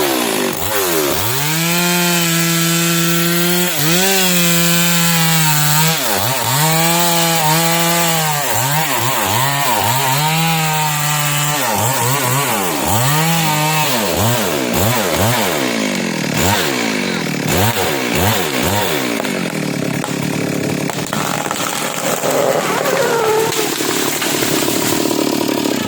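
Stihl MS 382 two-stroke chainsaw cutting through a kenanga (ylang-ylang) tree trunk. The engine's pitch sags under load and recovers again and again, then rises and falls more quickly from about halfway, with the motor running near full throttle.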